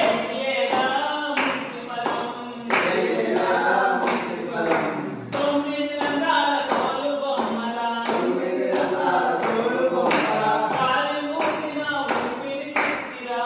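A group of men singing a devotional bhajan together, clapping their hands in a steady beat about twice a second.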